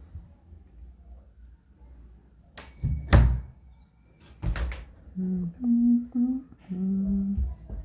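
Wooden wardrobe doors knocking as they are swung open and handled: one loud thunk with a short ring about three seconds in, then two quick knocks a moment later. Near the end come four short hummed notes.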